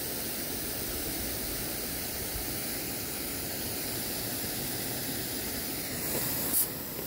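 Running lawn sprinkler heads spraying water with a steady hiss, and a brief click near the end.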